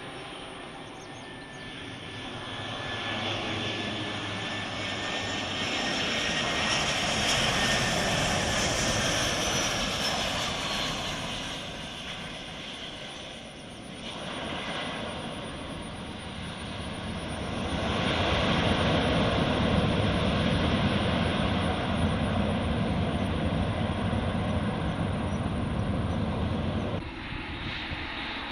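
Airliner flying low to land, its engine noise building to a peak with a slowly falling whine as it passes. After a brief dip comes a second long surge of deep rumbling engine noise, which drops off suddenly near the end.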